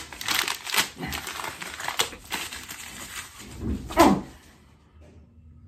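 A sheet of paper crumpled and scrunched up by hand, with a dense run of crackling and rustling. About four seconds in there is a short falling grunt, and then it goes quiet.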